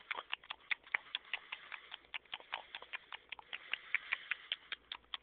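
Rapid, irregular clicking, several sharp clicks a second.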